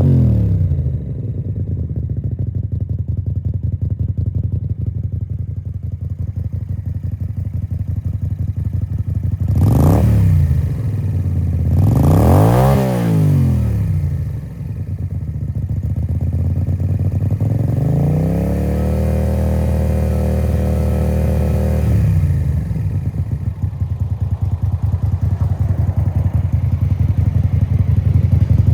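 Suzuki Intruder 250LC's 250cc V-twin idling through a 2-into-1 exhaust into an open-end Harley V-Rod silencer. It is blipped about ten seconds in and again around twelve seconds, rising and falling each time, then held at raised revs for about four seconds before dropping back to idle.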